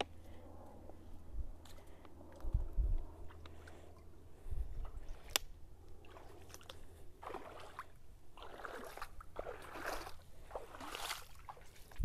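Bare feet wading through shallow floodwater, with a slosh and splash at each step, about one a second through the second half. A few low thumps come earlier.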